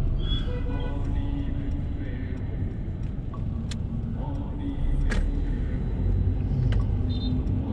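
Steady low rumble of road and engine noise heard from inside a car's cabin as it drives slowly, with a couple of short sharp clicks in the middle.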